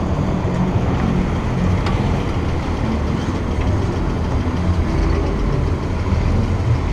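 Motorcycle engines idling together, a steady low rumble.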